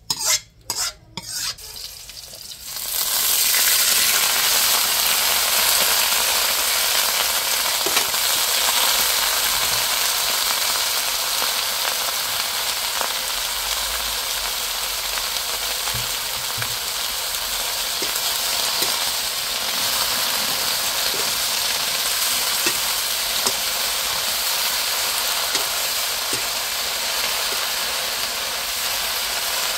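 Pumpkin shoots and leaves hitting hot oil in an iron wok and stir-frying: a loud, steady sizzle from about two and a half seconds in. A few clinks come just before it starts, and the metal ladle gives small clicks now and then as it stirs the greens.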